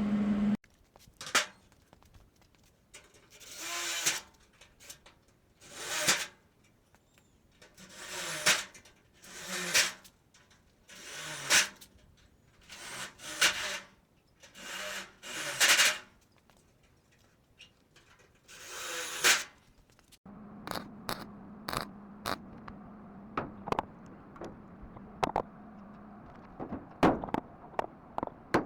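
Electric drill boring holes through the sheet-metal truck hood for spot welds, in about nine short separate bursts that each build up and then stop. Near the end comes a steady low hum with scattered sharp ticks.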